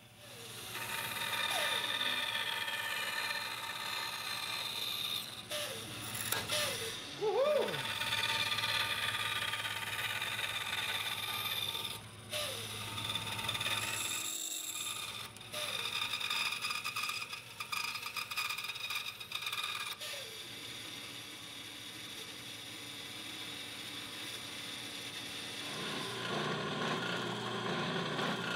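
A small electric power tool running with a steady whine of many tones. Its pitch dips briefly several times, and the sound drops out for a moment twice in the middle.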